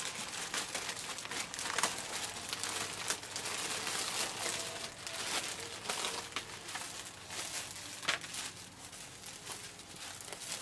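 Thin plastic crinkling and rustling as a sealed plastic packet is pulled open and a disposable plastic apron is shaken out and unfolded. The crackling is irregular, with a few sharper snaps.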